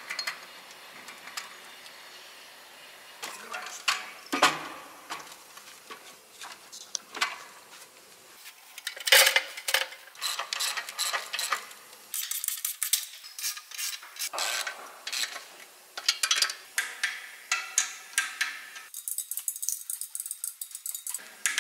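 Metal clinks and clanks of hand tools and clutch parts as a truck clutch pressure plate and disc are fitted to an Iveco Cursor 8 engine's flywheel. The first half has scattered single knocks; the second half has runs of quick metallic clicking.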